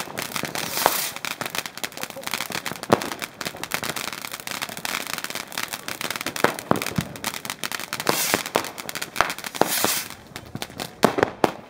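New Year's fireworks and firecrackers going off in quick succession: a dense run of sharp bangs and crackles. The hissing spray of a ground fountain firework swells about a second in and again around eight to ten seconds.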